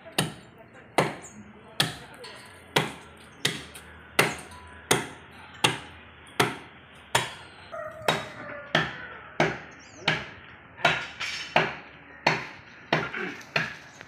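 Steady chopping into the trunk of a fallen tree with a hand blade, one sharp stroke about every three-quarters of a second.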